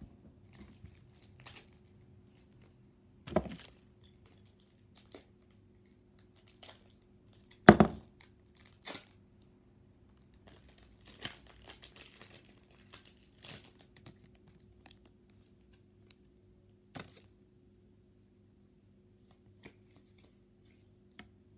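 Foil wrapper of a Pokémon trading-card booster pack being torn open and crinkled by hand: scattered sharp crackles, the loudest about three and a half and eight seconds in, and a run of crinkling around the middle.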